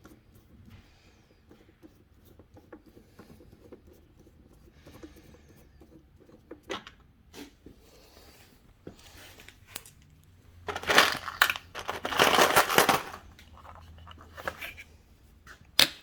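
Hands and tools working on motorcycle body parts while a screw is being removed: scattered small clicks and scrapes, then a loud burst of rustling and rattling for about two seconds near the end, and one sharp click just before it ends.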